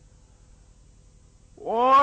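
A pause in a man's chanted Quran recitation with only faint background noise, then about one and a half seconds in the reciter's voice sweeps up in pitch into a long held note as he begins the next phrase.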